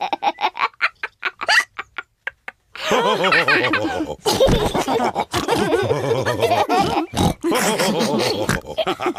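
Cartoon pig characters laughing with snorts: short bursts of laughter trail off, a brief pause follows about two and a half seconds in, then a longer, louder stretch of snorting laughter.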